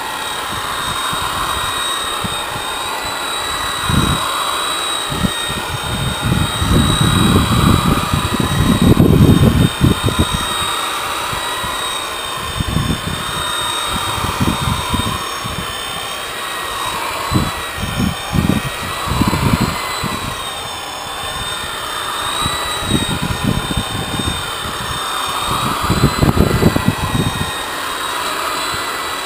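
Corded electric rotary polisher running with a foam pad buffing a painted boat hull: a steady high whine that wavers slightly in pitch, over irregular low rumbling.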